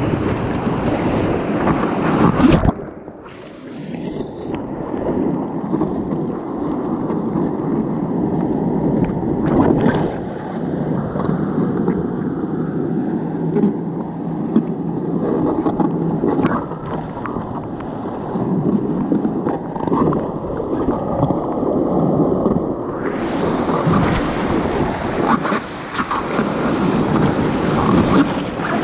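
Rushing whitewater rapids of the Sevier River, with water splashing against a packraft. The sound goes dull and muffled about three seconds in and clears again near the end.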